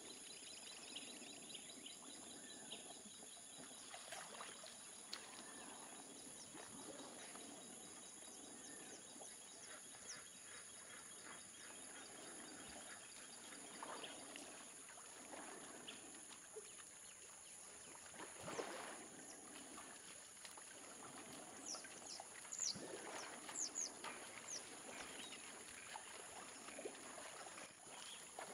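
Faint outdoor ambience of elephants wading through shallow water: soft splashes and sloshes, a few louder about two-thirds of the way through, over a steady high hiss, with a handful of short bird chirps near the end.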